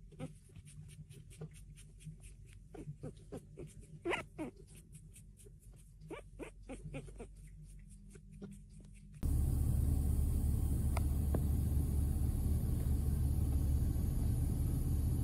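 Newborn puppies making faint, scattered squeaks and small clicks, with two louder squeaks about four seconds in. About nine seconds in, the sound cuts to a steady, louder low outdoor rumble with two brief high peeps.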